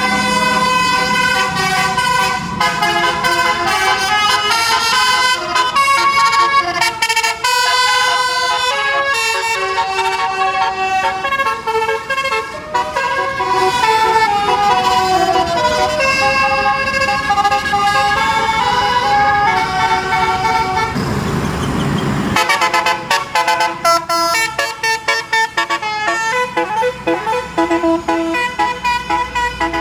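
Telolet basuri multi-note bus air horn playing a tune in quick stepped notes, several tones sounding together, with a brief rushing noise about 21 seconds in before the tune starts again.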